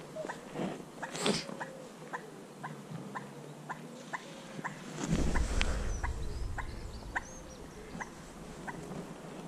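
A dog whining in short, high, evenly spaced whimpers, about two a second. About halfway through, a low rumble of wind or handling noise comes in underneath.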